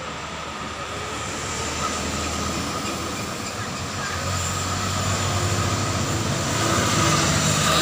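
Roadside traffic noise growing steadily louder as a vehicle approaches, with a low engine rumble building in the second half.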